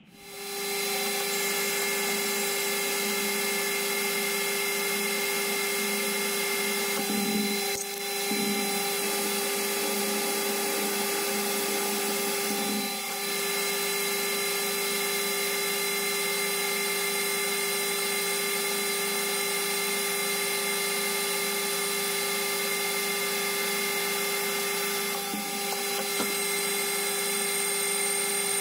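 Metal lathe spinning up in the first second, then running steadily with a high motor whine while the cutting tool turns down a metal bar held in the chuck.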